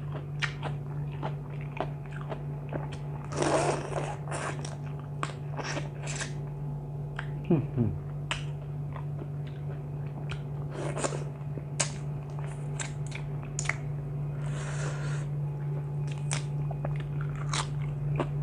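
A person biting and chewing crunchy food close to the microphone: many short crunches and a few longer bouts of chewing. A steady low hum runs underneath.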